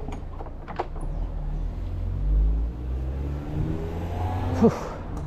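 A car accelerating on the street, its engine note rising over about a second, with wind rumbling on the microphone. A short, sharp sound comes near the end.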